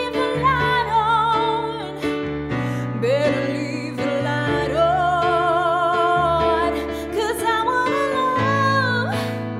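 A song playing: a woman sings long held notes with a wide vibrato over a steady instrumental backing.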